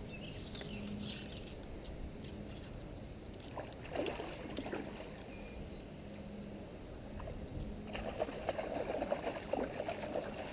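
Hooked carp splashing and thrashing at the water's surface, starting about eight seconds in, over a steady low background.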